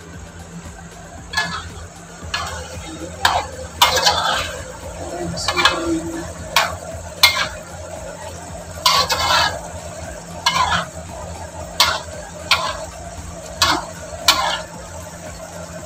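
Metal spatula scraping and knocking against a wok as shredded chicken is stir-fried, in short irregular strokes roughly once a second, with sizzling underneath.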